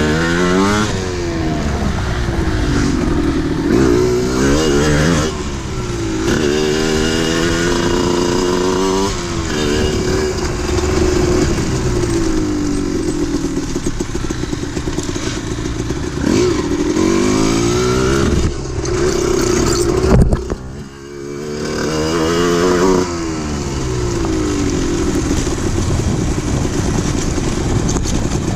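Yamaha DT 125's single-cylinder two-stroke engine being ridden, revving up and falling back again and again as it runs through the gears. About 20 seconds in, a sharp crack and a brief dip in sound, then the revs climb again.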